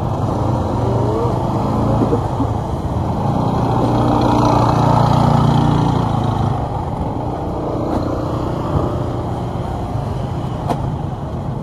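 Motor scooter engines passing close by at low speed; the nearest one swells to its loudest about halfway through. Under them is the steady din of a busy street.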